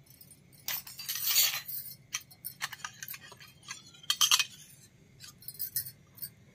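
Miniature stainless steel toy plates clinking against one another and on the table as they are handled, in bursts of sharp metallic clinks. The loudest flurries come about a second in and again past four seconds, with lighter ticks between.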